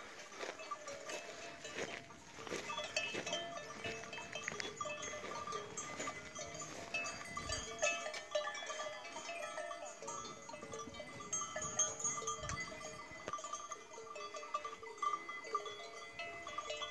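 Bells on grazing cattle clinking and clanking irregularly at several pitches.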